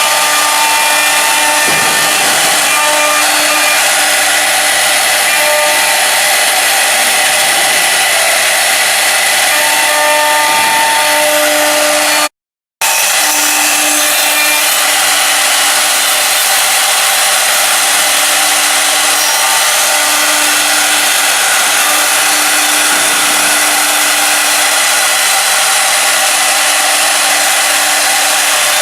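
3 kW air-cooled spindles of a four-spindle rotary CNC router running and rough-engraving, a loud steady cutting whir with pitched tones that come and go. The sound drops out completely for a moment about twelve seconds in.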